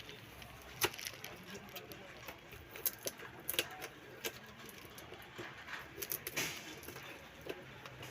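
A sealed cardboard box and packaging being handled and opened, giving scattered clicks, knocks and rustles, several sharper ones among them.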